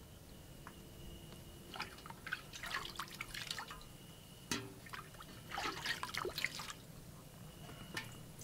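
Water splashing and dripping in a bucket in two spells of a second or two each, with a single sharp knock between them.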